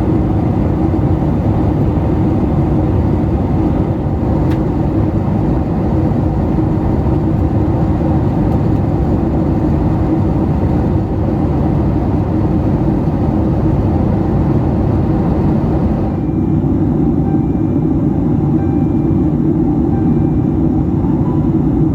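Steady low roar of a Boeing 757-300's cabin in cruise: engine and airflow noise. The higher hiss drops off about three quarters of the way through.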